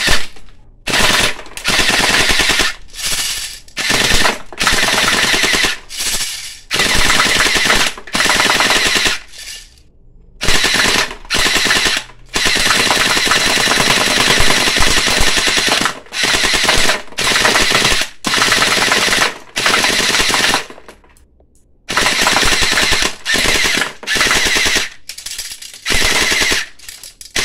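Automatic pellet gun firing in rapid full-auto bursts, each about one to three seconds long with short breaks between; the longest burst runs about three seconds near the middle, and there is a pause of about a second shortly before the end.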